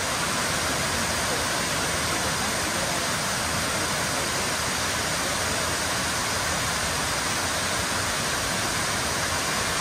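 Tiered waterfall cascading over rock ledges into pools: a steady, even rush of falling water.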